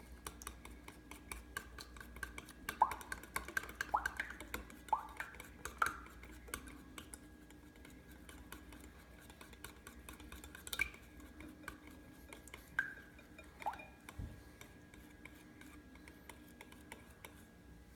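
A spoon stirring school glue, water and pink food dye in a mixing bowl, with faint scraping and short ringing clinks against the bowl. The clinks come in a quick run a few seconds in, then a few more scattered later.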